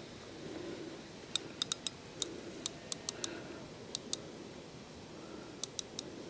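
About a dozen sharp, light clicks in small irregular clusters from fishing tackle being handled as a freshly lowered rod is set up, over a low wind noise on an unshielded microphone.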